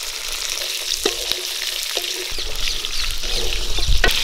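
Whole spice-paste ingredients (shallots, garlic, dried red chillies, coconut) sizzling in a metal kadai over a wood fire while being stirred with a metal slotted spatula, which scrapes and knocks against the pan a few times.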